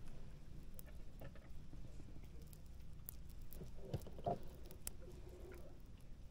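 Faint small clicks and rustles from gloved fingers threading a shrimp onto a fishing hook, with two louder taps about four seconds in, over a low steady rumble.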